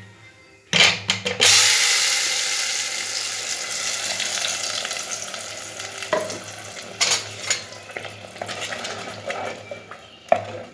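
Ground onion-tomato paste poured into hot oil with popped mustard seeds: a sudden loud sizzle about a second and a half in that slowly dies down. A wooden spatula stirs the paste, with a few knocks against the pot.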